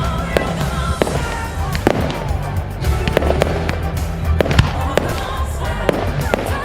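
Fireworks display: about a dozen sharp bangs and cracks of shells bursting at irregular intervals. Music with a heavy bass plays underneath.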